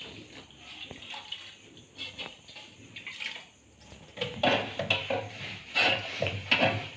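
Washing-up sounds while cleaning fridge parts: water splashing with irregular knocks and rubbing, growing louder and busier from about four seconds in.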